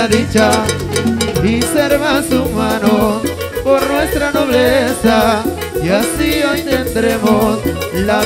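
A Peruvian cumbia band playing live, with male voices singing over a steady dance beat.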